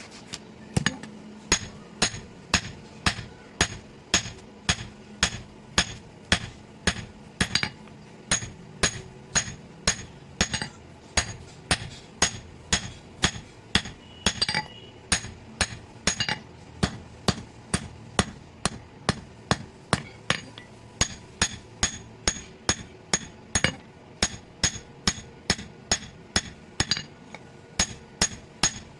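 Hand hammer forging metal on an anvil, striking steadily about twice a second with a bright ring on each blow.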